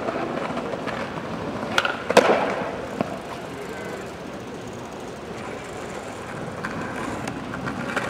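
Street ambience of a pedestrian plaza, broken by a few sharp clacks about two seconds in and one more shortly after.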